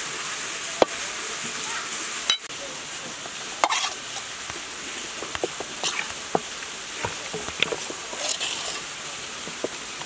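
Hands rubbing a sugar-and-seasoning mix into a raw duck in a metal basin: scattered wet squishing and light clicks, starting a few seconds in, over the steady rush of a waterfall.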